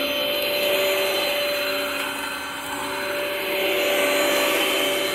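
2010 Sanitaire Multi-Purpose Pro commercial upright vacuum running steadily, a constant motor whine over the rush of suction air. The sound eases off slightly about halfway through, then comes back up.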